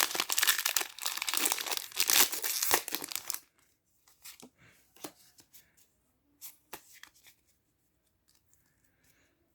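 Foil Pokémon booster pack wrapper being torn open and crinkled for about three and a half seconds, followed by a few light clicks and taps of the cards being handled.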